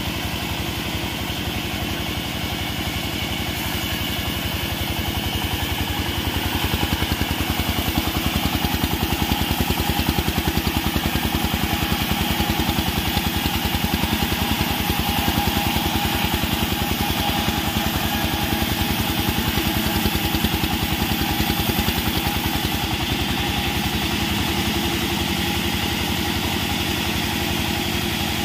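Small sawmill running steadily with an engine's fast, even pulse, getting louder from about six seconds in until about twenty-two seconds in while a squared log is pushed through the blade.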